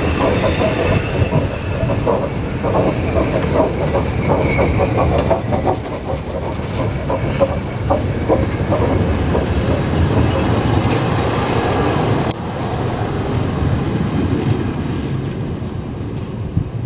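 ER2K electric multiple unit moving past and pulling away, with the running rumble and its wheels clattering over the rail joints. The clatter is dense for about the first ten seconds, then thins out as the last car goes by, with one sharp click about twelve seconds in.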